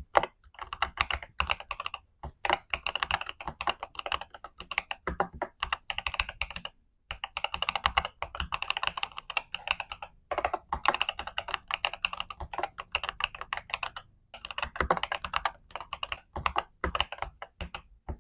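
Typing on a Skyloong GK87 Pro mechanical keyboard with Chocolate Rose switches and Milky Green keycaps: fast runs of keystrokes clacking, broken by brief pauses, stopping abruptly near the end.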